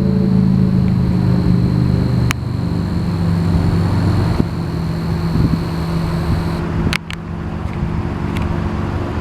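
A steady low hum of an engine running, like a vehicle idling, with a few sharp clicks.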